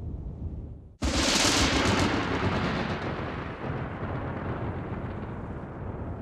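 A sudden loud thunderclap about a second in, its sharp crack fading into a rolling rumble that dies away over the next few seconds, above a low background rumble.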